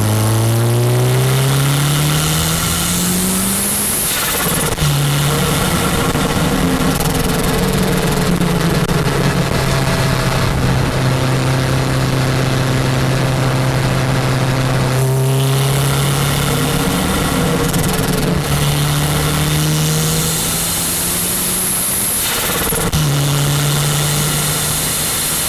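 Toyota MR2 Turbo's 3S-GTE turbocharged four-cylinder engine, fitted with a T3/T4 turbo and no blow-off valve, pulling through the gears: its pitch rises for a few seconds, drops off at a shift about four seconds in, holds steady, and climbs again, with further breaks near the middle and near the end.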